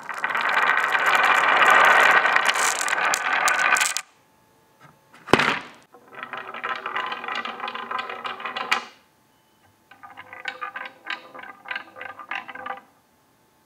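Glass marbles rolling and clattering down the wavy routed grooves of wooden marble boards cut from fence pickets. There are three runs: a dense, loud clatter for about four seconds, a second one from about six to nine seconds, and a sparser string of clicks near the end. A single sharp knock comes between the first two runs.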